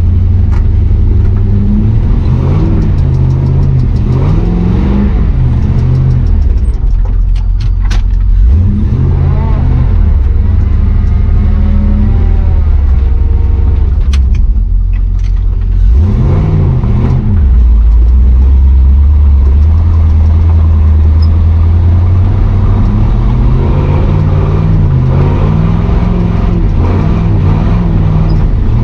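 Chevrolet 6.0 Vortec V8 in a square-body 4x4 pickup driving under load, the engine revving up and down again and again. A few brief knocks break in about a third and a half of the way through.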